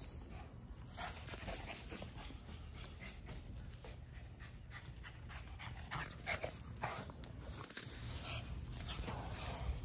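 A dog panting close by, in short irregular breaths, over a low steady hum.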